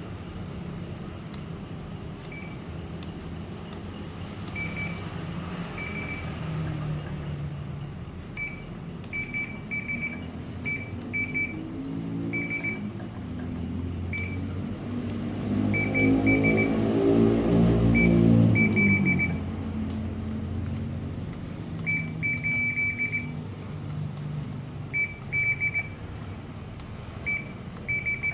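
Short, high electronic beeps in irregular groups of one to five, repeating throughout over a steady background hum. About twelve seconds in, a low engine drone swells, is loudest between about sixteen and nineteen seconds, then fades away.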